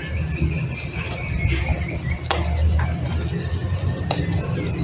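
Macaw cracking a nut with its beak: sharp cracks about two seconds in and again near the end, among short high squeaks, over a steady low rumble.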